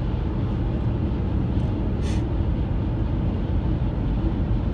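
Steady low rumble of tyre and engine noise inside a car's cabin at highway speed, with a brief hiss about two seconds in.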